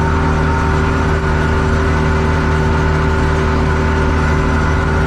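Small-brand Chinese four-wheel-drive tractor running steadily under way, its engine and drivetrain holding an even pitch throughout. The owner considers its rear axle unusually loud.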